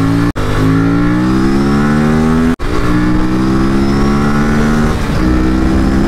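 Aprilia RS457's parallel-twin engine breathing through a full-system aftermarket exhaust while accelerating through the gears: the note climbs steadily, cuts out for an instant and drops with an upshift about half a second in and again about two and a half seconds in, then climbs again and shifts once more near the end.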